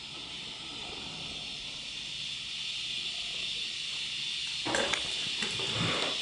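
A steady hiss with no clear source, slowly growing louder. About five seconds in comes a short scuffle as the dog rolls off its back onto the wooden floor.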